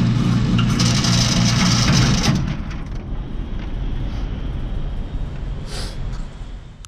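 Electric target retrieval carrier on an indoor range's overhead rail, its motor humming steadily as it brings the paper target in, then stopping about two seconds in. A short rustle comes near the end.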